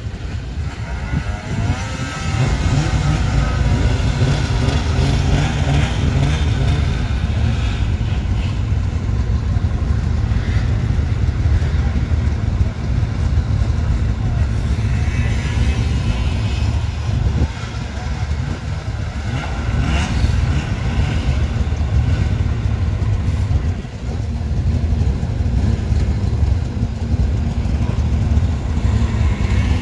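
Several two-stroke race snowmobiles running together at idle in a staging line, a steady low rumble, with one engine revving up about a second in.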